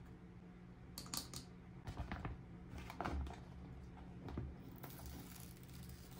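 Light clicks and taps of small toy pieces from a miniature kitchen set being handled and set down, a few scattered sharp knocks with a soft rustle near the end, over a steady low hum.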